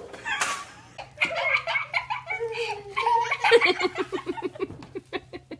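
A person laughing hard, breaking into a fast run of short "ha-ha" bursts in the second half. A short noisy burst comes just after the start.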